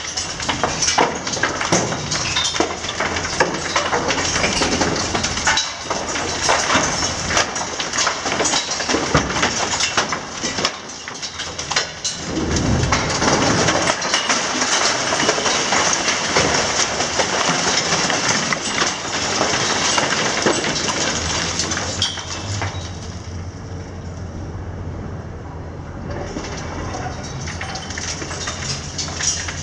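Demolition debris: broken masonry and concrete clattering and crashing down onto the pavement in a continuous shower of impacts, with a heavier rumbling crash about twelve seconds in. The diesel engine of the Hitachi 870 LCH demolition excavator runs steadily underneath, plainest in the quieter stretch near the end.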